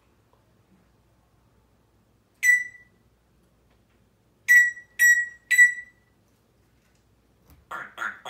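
African grey parrot giving loud, clean electronic-style beeps, a single one and then three in quick succession, in the manner of an appliance beep. Near the end come a couple of short rough noises.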